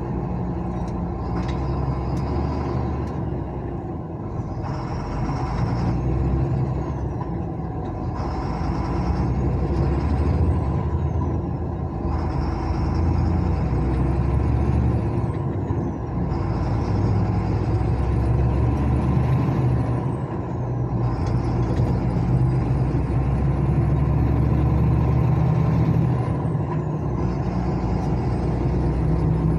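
Engine and road noise of a car accelerating through the gears, heard from inside. A high whine rises with the revs and drops sharply at each gear change, five times, with each gear held a little longer than the last.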